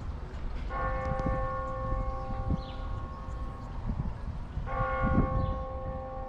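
A large bell tolling: two strikes about four seconds apart, each ringing on and fading slowly, over a low rumble.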